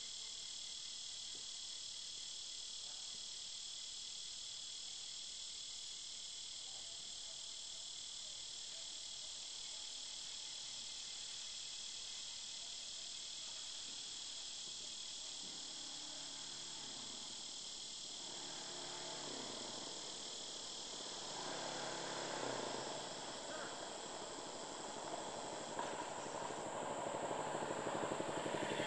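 Steady high-pitched insect chorus. From about two-thirds of the way in, an engine approaches and grows louder toward the end.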